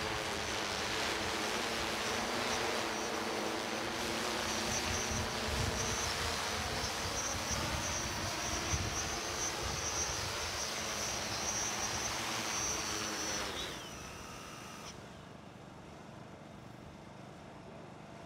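Multirotor drone's propellers whirring steadily with a high whine. About thirteen seconds in the pitch slides down and the sound drops to a quieter hum as the rotors slow.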